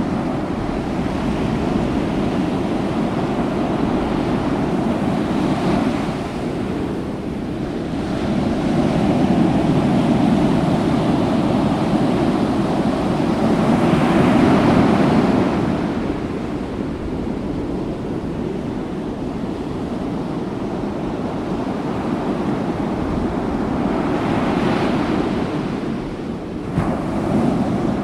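Rushing sea-water noise, like surf or underwater ambience, swelling and easing several times. A short knock sounds near the end.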